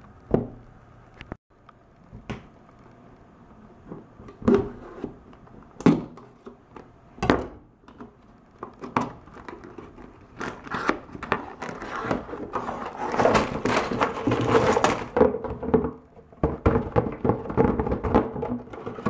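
A LEGO set's cardboard box being handled and opened by hand: a few sharp knocks and taps as it is turned and set down, then a longer stretch of crinkly tearing and rustling as the end flap is pried open and the plastic parts bags come out, with more taps near the end as they are laid down.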